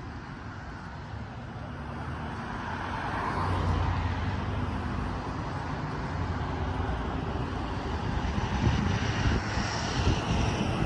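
Road traffic on a city street: cars passing, with a steady low engine drone underneath. Wind buffets the microphone near the end.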